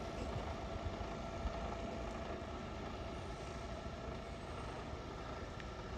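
Diesel engine of an articulated lorry's tractor unit running at low speed as the truck manoeuvres with its semi-trailer: a steady low rumble with a faint constant hum.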